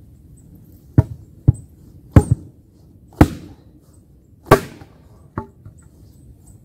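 Axe chopping wood: about seven sharp, unevenly spaced blows, the louder ones trailing off briefly.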